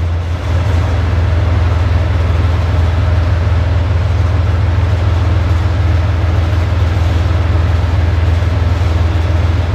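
Soviet T-55 AM2 tank's V12 diesel engine idling with a steady, loud low rumble.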